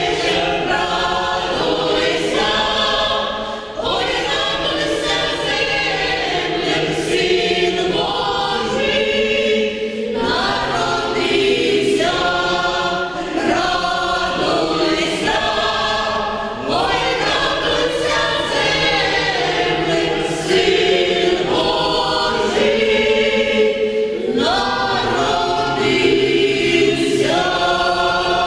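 Vocal ensemble singing as a choir, in phrases with brief breaks between them.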